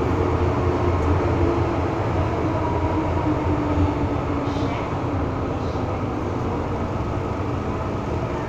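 MTR M-Train electric multiple unit running on the line, heard from inside the passenger car: a steady rumble of wheels and running gear with a faint motor hum, a little quieter from about four seconds in.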